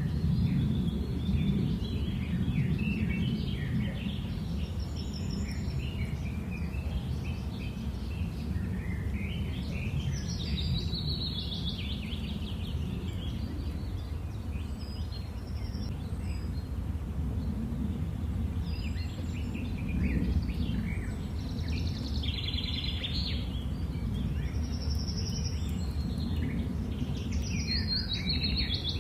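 Songbirds chirping and singing outdoors, with scattered trills and quick calls throughout, over a steady low background rumble.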